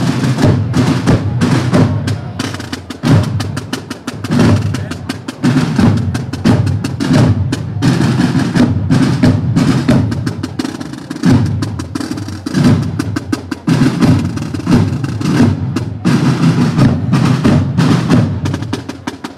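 A corps of marching drums played together, many drummers striking a continuous rhythmic pattern.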